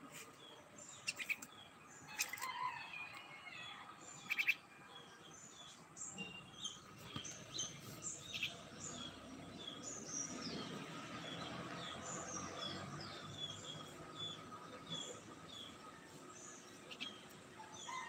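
Bird chirping over and over in short, high notes, settling into a steady run of chirps about two a second in the second half. A few sharp clicks stand out as the loudest sounds in the first few seconds.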